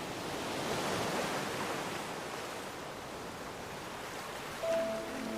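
Steady rushing water, swelling about a second in and then holding even. Music with sustained notes comes in near the end.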